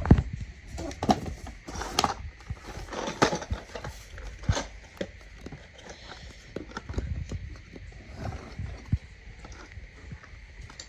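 Irregular knocks, clicks and clatter of a pool robot vacuum's hard plastic parts and packaging being handled while it is unpacked, louder in the first few seconds and sparser later.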